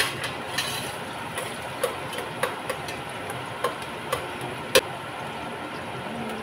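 A metal stirring utensil knocking and scraping against the side of a stainless steel pot while onions and peppers fry in oil, with a steady sizzle underneath. There are about seven sharp knocks at uneven intervals, the loudest about five seconds in.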